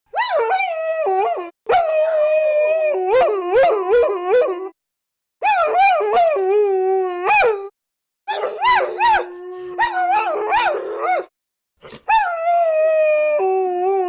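Several dogs howling together: overlapping, wavering howls at different pitches with some yips. It comes in about five stretches, each cut off by a brief gap of silence.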